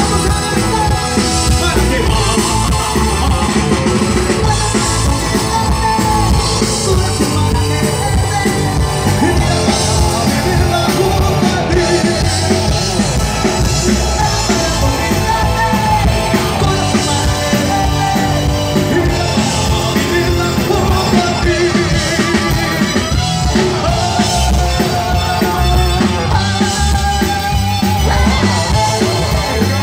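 Live rock band playing through the stage PA: electric guitars, bass, drums and keyboard, with a singer singing over them.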